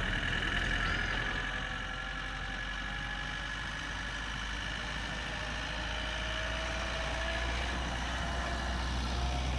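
Multirotor drone's motors and propellers whining steadily, with a low hum beneath and a fainter tone that slowly rises in pitch in the second half.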